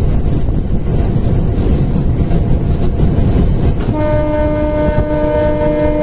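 Train running with a steady, loud low rumble; about four seconds in its horn starts, a held multi-note chord that is still sounding at the end.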